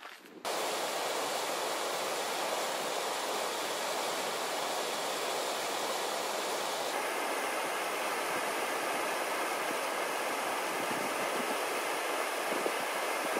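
Fast mountain stream of snowmelt rushing over rocks: a loud, steady rush of water that starts suddenly half a second in, its tone shifting slightly about halfway through.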